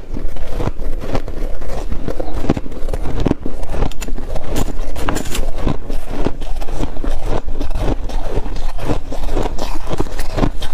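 Shaved ice crunching as it is chewed, at about three or four crunches a second, with a metal spoon scraping and digging through the shaved ice in the bowl.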